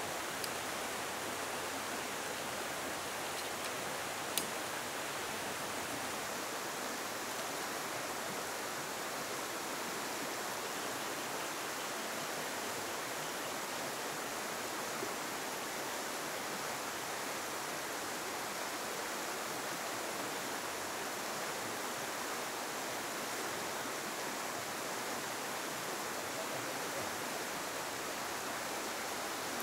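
Steady rushing of a river flowing over its bed, an even hiss that does not change. One sharp click sounds about four seconds in.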